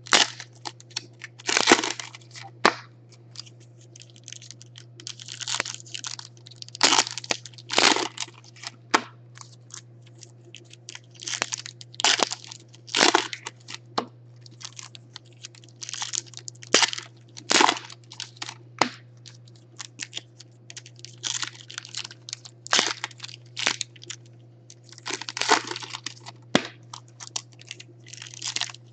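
Foil-wrapped Panini Contenders football card packs being torn open and crinkled by hand, in a string of irregular crackling bursts.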